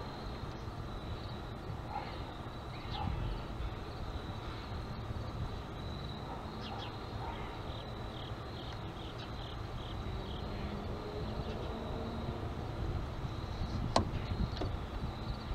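Quiet outdoor background: a low rumble and a steady high, insect-like whine, with a few faint chirps. About fourteen seconds in comes one sharp click.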